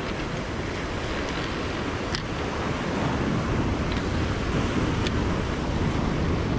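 Surf washing against a rocky shore with wind buffeting the microphone; a few faint clicks about two, four and five seconds in.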